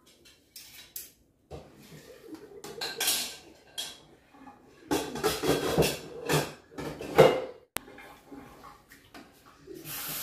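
Irregular clinking and clattering of dishes, pots and cutlery, with a steady hiss coming in right at the end.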